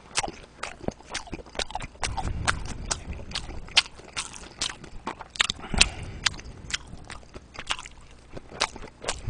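Close-up chewing of steamed dumplings, open-mouthed, with wet mouth clicks and smacks about three times a second.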